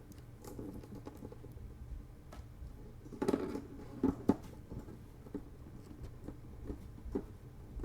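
Small plastic model-kit parts being handled and moved: scattered light clicks and rustles, with a few sharper plastic clicks about three to four seconds in.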